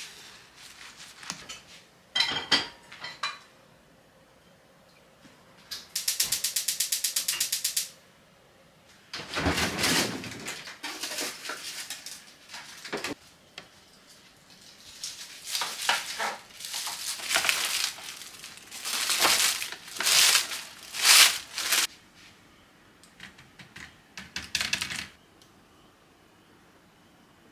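Kitchen handling sounds: scattered clacks and clatter of a pan, utensils and a tray, with a rapid run of even clicks for about two seconds from a gas stove's igniter being lit. The loudest clacks come in clusters in the second half.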